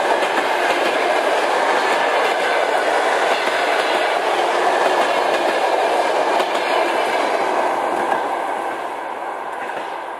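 Passenger coaches of a train rolling past, their wheels running on the rails. The sound fades away over the last few seconds as the last coach goes by.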